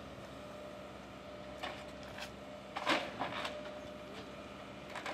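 Link-Belt long-reach demolition excavator running with a steady engine and hydraulic hum, broken by several short bursts of crunching and scraping as its attachment breaks into the building and debris shifts, the loudest a little under three seconds in.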